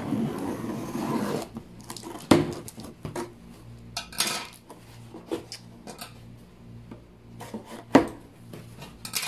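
Scissors slicing through packing tape on a cardboard box, then the cardboard flaps being opened and handled, with rustling and sharp knocks, the loudest knock near the end.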